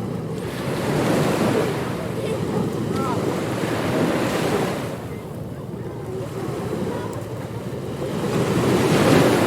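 Ocean surf washing in, a steady rush that swells and eases in slow waves, with the biggest swell near the end.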